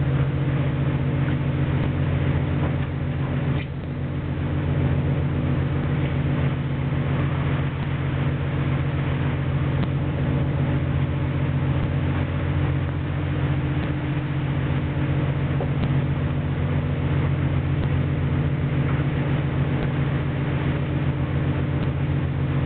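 A longline fishing boat's engine and machinery running with a steady low drone under a constant rushing noise, dipping briefly about three and a half seconds in.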